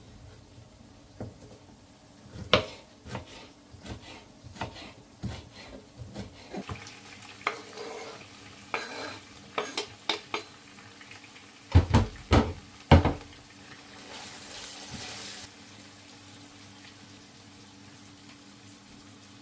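Kitchen utensils and dishes being handled: a run of clinks and knocks, three louder knocks about two-thirds of the way in, then a brief hiss.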